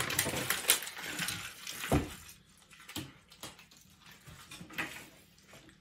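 A sheet of paper rustling and crinkling as it is handled, a soft thump about two seconds in, then a few faint scattered taps.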